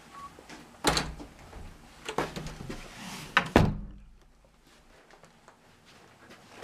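A door being handled with a few knocks and thumps, then shut with a heavy thud about three and a half seconds in.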